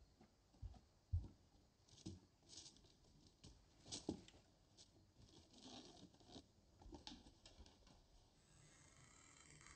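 Quiet, soft footsteps and rustling of movement, a few light thumps, the firmest about a second in, between patches of faint scuffing.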